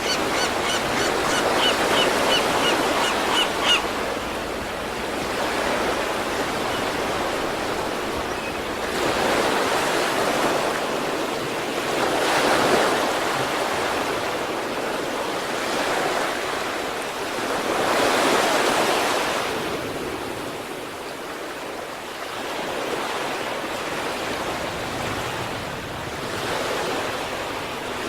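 Sea waves breaking and washing on the shore, rising and falling in repeated surges. A rapid series of small high chirps sounds over the surf in the first few seconds.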